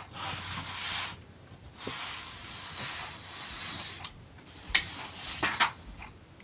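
Pages of a hardback picture book being turned by hand: paper rustling and sliding for about three seconds, then a few short sharp clicks as the pages are handled and settle.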